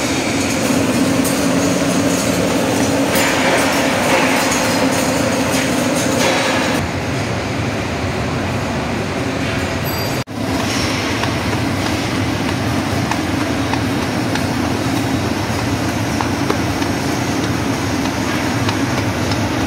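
Poultry slaughter line machinery running, a steady mechanical rumble and clatter. It breaks off briefly about ten seconds in and resumes much the same, moving from the plucking machine to the evisceration line's overhead shackle conveyor.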